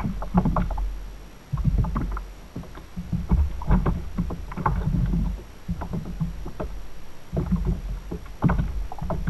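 Water sloshing and slapping against a fishing kayak's hull in uneven bursts, with a low rumble and scattered knocks and clicks.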